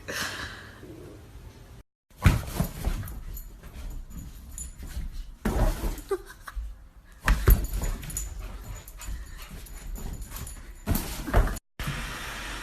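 Dog vocalisations with several sharp knocks and handling noises, broken into short clips by abrupt cuts.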